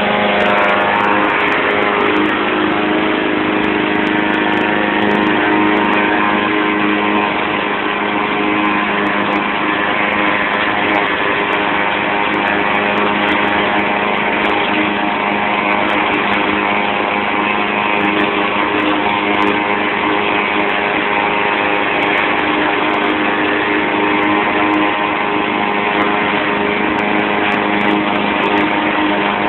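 YardMan 21-inch push mower's 159cc PowerMore single-cylinder gas engine running steadily at a constant speed while mowing grass.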